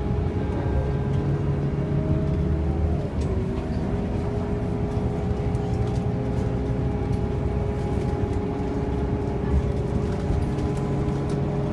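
Interior drone of a Scania K230UB single-deck bus under way, its five-cylinder diesel engine and driveline giving a steady low rumble with a high whine over it. The whine dips briefly in pitch about three seconds in, then holds steady again.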